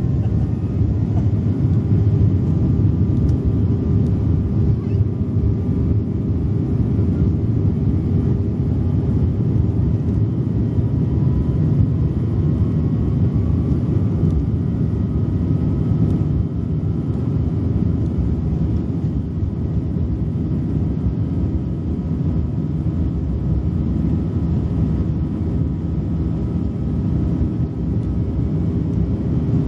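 Jet airliner on its take-off roll, heard from inside the cabin: a loud, steady engine roar and wheel rumble with a faint whine above it.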